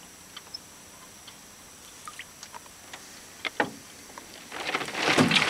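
Hooked bass thrashing and splashing at the water's surface, loudly from about four and a half seconds in, after a stretch of faint scattered clicks and a single knock.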